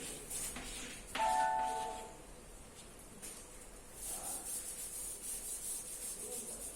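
A single bell-like ding about a second in, a few steady tones ringing out and fading over about a second. Later comes a steady, scratchy high hiss.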